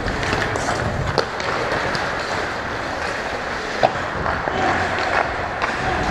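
Ice hockey play on an indoor rink: skates scraping and carving the ice, with two sharp clacks about a second in and near four seconds, and faint distant shouts from players in the second half.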